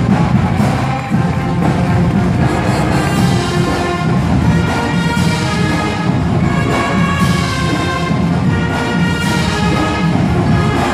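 Marching band playing live: brass section with sousaphones over drums keeping a steady beat.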